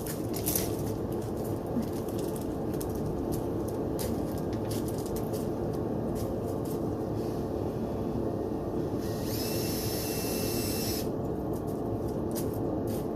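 Steady rush of a clothes dryer running on air-only, with scattered clicks of parts being handled. About nine seconds in, a power drill spins briefly with a high whine for about two seconds.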